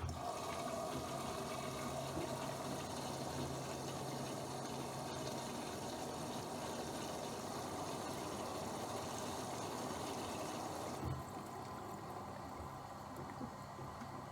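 Bosch Aquasensor WFP3231 washing machine taking in water: the flow starts suddenly and runs as a steady rushing hiss. About eleven seconds in there is a thump, and the flow drops to a quieter hiss.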